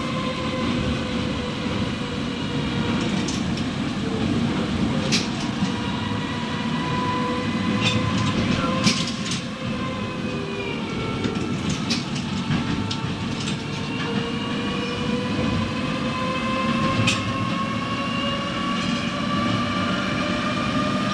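1954 Hansa-built T4b tram running on its line, heard from on board: a steady rumble with a whine from the drive that sinks a little in pitch, then rises steadily through the second half as the car gathers speed. The wheels clack sharply over rail joints a few times.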